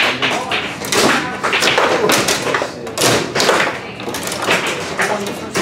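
Foosball table in fast play: a quick, irregular run of sharp knocks and thuds as the ball is struck by the rod men and bangs off the table.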